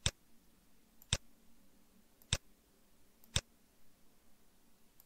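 Four single computer mouse clicks, about one a second, with a faint low hum beneath.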